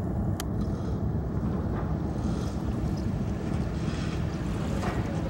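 Steady low rumble of a ship's engine, with wind on the microphone. A brief click about half a second in.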